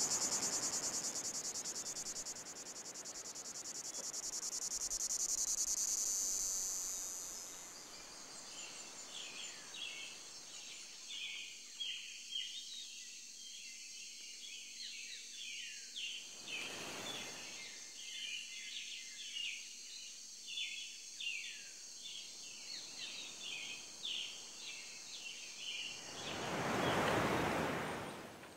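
Crickets chirping in a steady high trill, loud for the first several seconds and then fainter, while many small birds twitter with short chirps from about a quarter of the way in until near the end. Swelling whooshes rise and fade at the start, about halfway through, and most loudly near the end.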